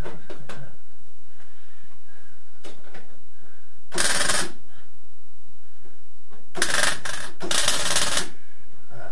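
MIG welder tack-welding steel on a car's sill panel: one short burst of welding about four seconds in, then two longer runs close together about two and a half seconds later.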